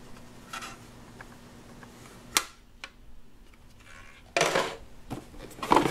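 Plastic toy oven and its small plastic parts being handled on a table: a single sharp click a little over two seconds in, then brief clattering and rubbing near the end.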